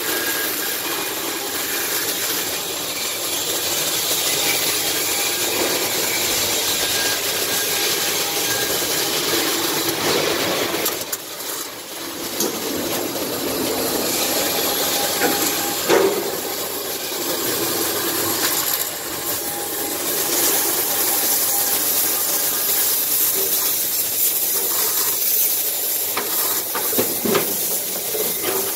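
Arc welding on aluminium: the welding arc makes a steady, crackling hiss, broken briefly about eleven seconds in.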